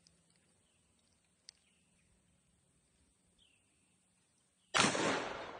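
A single shot from a Magnum Research BFR revolver in .460 S&W Magnum, sudden and loud about three-quarters of the way in. Its report dies away over about a second.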